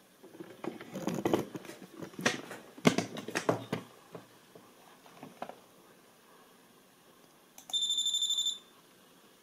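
Knocks and rustles of handling for the first few seconds, the loudest near the three-second mark. About three-quarters of the way in comes an electronic beep: a high tone pulsing rapidly for about a second.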